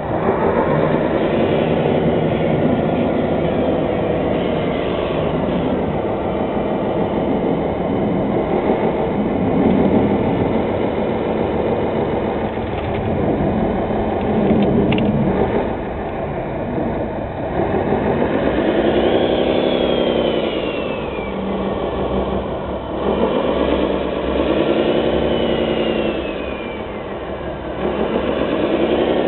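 Radio-controlled construction vehicles running, with a continuous engine-like sound. In the second half the pitch rises and falls again three times, about every five seconds.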